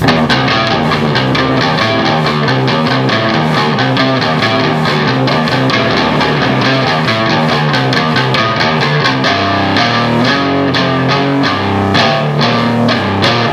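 A band jamming live: electric guitar played over a drum kit, loud and steady throughout.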